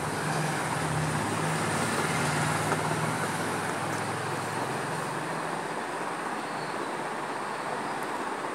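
Steady rushing background noise with a low hum in the first half that fades out about halfway through.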